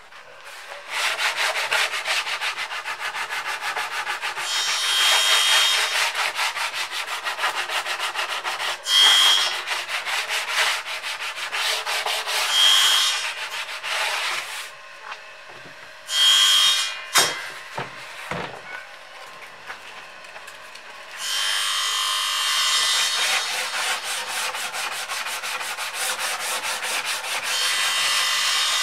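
Sanding on Oregon pine boards: a steady, scratchy run of strokes that stops for a few seconds past the middle, with a couple of sharp knocks, then starts again.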